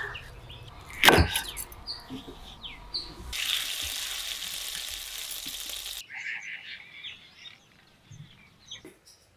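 A sharp knock about a second in, then about three seconds of steady hiss that starts and stops abruptly, followed by faint bird chirps.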